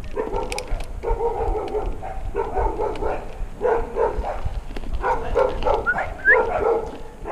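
A dog barking in quick runs of short barks, with a brief high yelp about six seconds in and a low rumble underneath.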